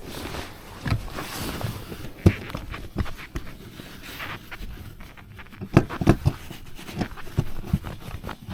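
Irregular knocks and bumps on a fishing boat, a dozen or so spread unevenly, over a steady background hiss.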